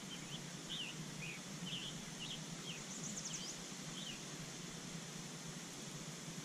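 Small wild birds chirping: a run of short, thin high notes about twice a second, with a brief very high trill about three seconds in, over a steady outdoor hiss.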